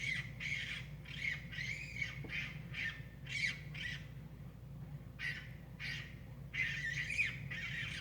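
An unidentified animal outdoors giving a rapid series of short, high squawking calls, about two to four a second. The calls pause for about a second around four seconds in, then resume.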